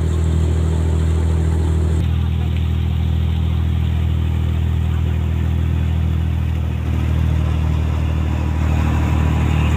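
Engine of a river passenger boat running steadily, heard from on board as a continuous low drone. Its tone shifts slightly about two and about seven seconds in.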